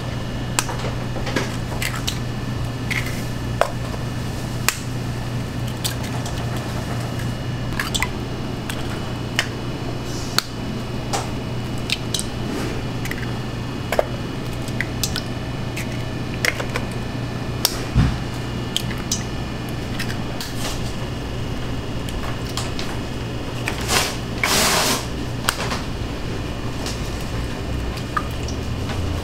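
Eggs being cracked one after another on the rim of a stainless steel bowl: short sharp taps and shell cracks every second or two, the contents dropping into the bowl, over a steady low hum. About three-quarters of the way through there is a brief louder crackling noise.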